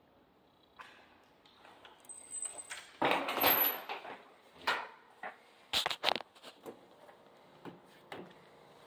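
An interior door being opened and shut, with a brief high squeak, a rush of noise about three seconds in, and sharp latch clicks about six seconds in, followed by a few lighter knocks.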